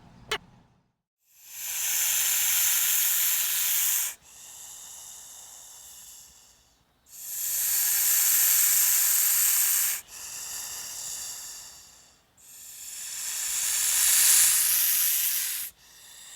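An animal hissing in long breaths: three loud hisses of about three seconds each, with quieter hisses between them.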